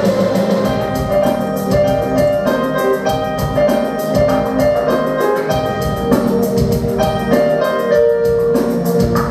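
Music: a song's accompaniment with keyboard and drums, playing steadily with a regular beat.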